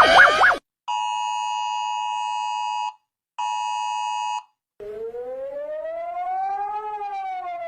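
Emergency-alert alarm tones: a fast warbling tone cuts off, then a steady multi-pitch attention tone sounds twice with a short gap between. About five seconds in, a siren starts, slowly rising in pitch and then falling again.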